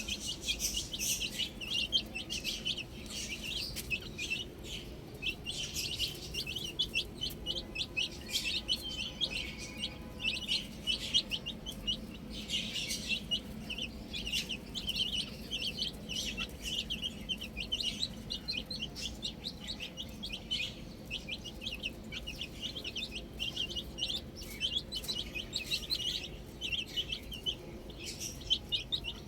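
Many baby chicks peeping nonstop, short high-pitched chirps overlapping one another.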